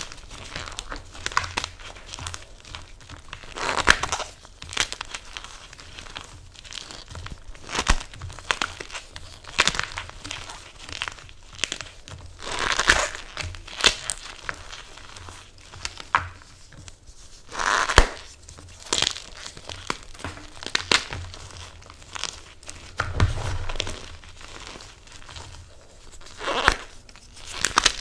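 Blocks of MagKing gym chalk topped with cornstarch, holi powder and glitter being crushed by hand, crumbling and crunching in irregular bursts of crackles, with louder crunches about 4, 13 and 18 seconds in.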